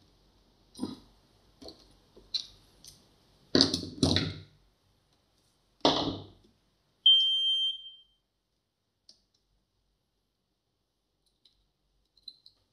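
Clicks and clattering knocks of pliers being handled and set down on a workbench. About seven seconds in comes a single loud electronic beep from the electric unicycle's beeper, just under a second long, as its power button is pressed.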